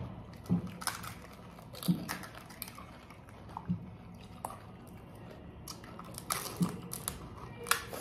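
Crisp panipuri (golgappa) shells being cracked open and chewed in quick mouthfuls: a scatter of irregular sharp crunches and clicks.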